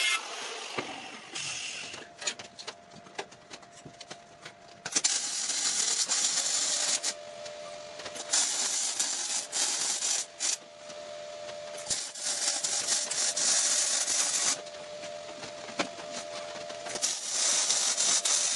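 Electric arc welding on steel: a sizzling, crackling arc that runs in four bursts of a few seconds each. Between the bursts a quieter steady hum is heard.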